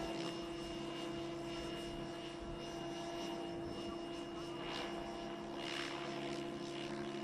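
DB7 radio-controlled model helicopter in flight, a steady whine of its rotor and motor holding one pitch, with two soft whooshes of the rotor about five and six seconds in.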